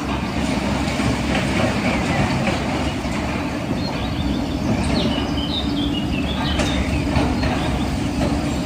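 A large engine running steadily with a low, continuous rumble.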